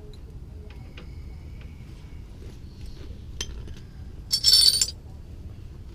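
Metal tools and parts clinking during auto suspension work: a few light clicks, then a loud, ringing metallic jangle lasting about half a second, about four and a half seconds in.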